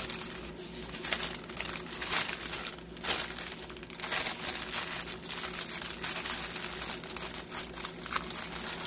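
Clear plastic bag crinkling and rustling in uneven crackles as small packets of diamond-painting drills are pushed back into it by hand.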